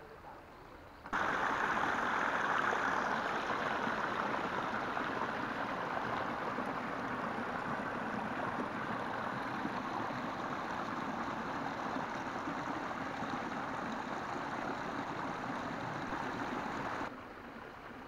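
Water rushing over rocks in a rocky stream channel, a steady splashing flow that cuts in abruptly about a second in and cuts off a second before the end.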